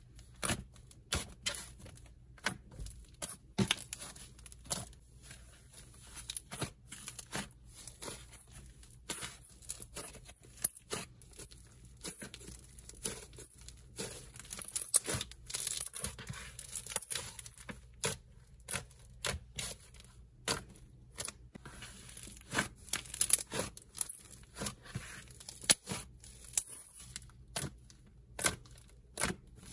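Purple puffy clay slime being poked, squeezed and stretched by hand, giving irregular sticky crackles and small pops, thicker in spells when it is pulled apart.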